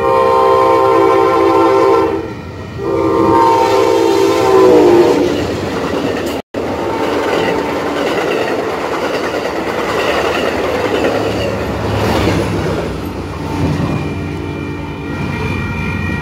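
Amtrak Pacific Surfliner passenger train sounding two long horn blasts as it approaches, the second dropping in pitch as it comes by. Then a rumbling rush of wheels and cars as it passes through at speed. Near the end a grade-crossing warning bell rings steadily.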